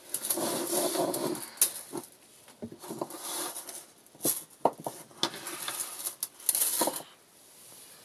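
Fine metal jewellery chain rustling and lightly clinking as it is pulled out, dropped in a pile on a cloth-covered table and handled, with scattered small clicks; the sound dies down about seven seconds in.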